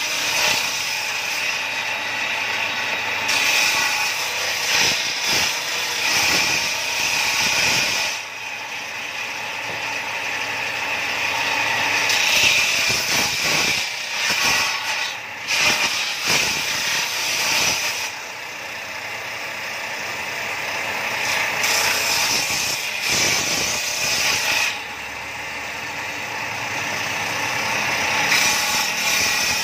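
Bench-mounted circular saw ripping wooden boards: the blade runs continuously with a high whine, swelling while a board is pushed through and dropping back sharply between cuts, three times over.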